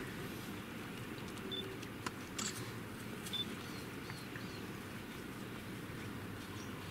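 A few faint, short, high animal squeaks and chirps, one about a second and a half in and another about three seconds in, with a few soft clicks, over a steady low rumble.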